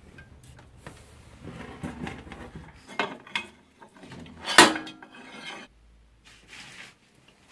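Metal parts and tools clattering as they are handled: a run of knocks and clinks, the loudest a sharp clank about four and a half seconds in.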